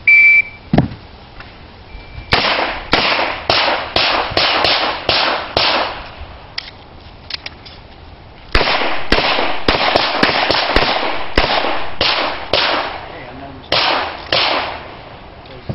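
A shot-timer start beep, then rapid pistol fire: strings of sharp gunshots, several a second, with a pause and a few small clicks partway through where the shooter reloads, and a couple more shots near the end.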